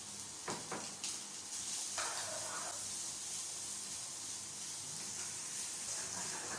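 Chopped bacon frying in a little oil in a pan: a steady sizzle, with a few light clicks in the first two seconds.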